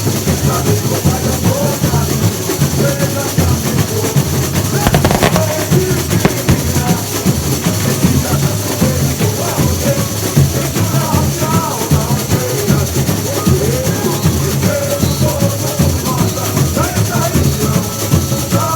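Samba school bateria playing a loud, steady samba groove: massed drums and percussion.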